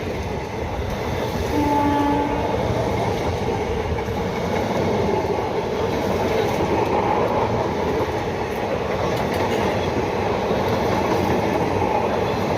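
Indian Railways locomotive horn giving a short blast about a second and a half in, then the steady rumble and rush of a train passing close by.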